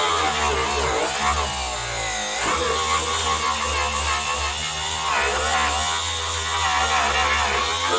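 Angle grinder running against the car's body panel, stripping filler and paint down to bare metal. Its motor pitch wavers, dipping and recovering about two seconds in.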